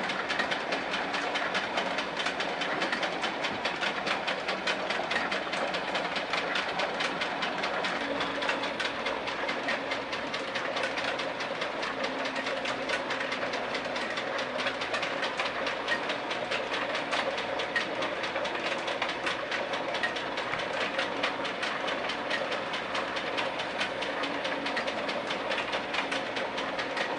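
Model train running on its track: a fast, steady clicking of wheels over the rail joints with a steady motor hum underneath.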